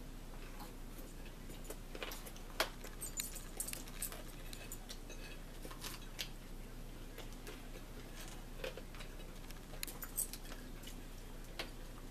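Metal forks clinking and scraping against a bowl and a plate as two people eat, in scattered sharp clicks, the loudest about two and a half seconds in and again near ten seconds. A faint steady hum runs underneath.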